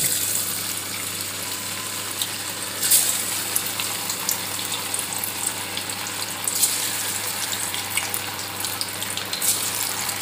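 Spice- and flour-coated anchovies deep-frying in hot oil: a steady sizzle with scattered crackles and pops, a louder pop about three seconds in.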